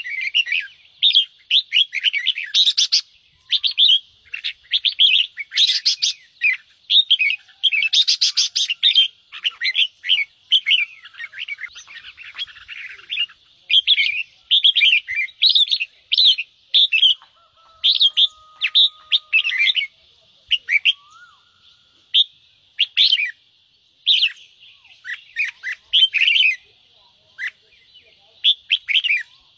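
Red-whiskered bulbuls giving the harsh 'ché' chatter, a fast stream of short, sharp chirps in bursts with brief pauses. A few short rattling noises come in among the calls.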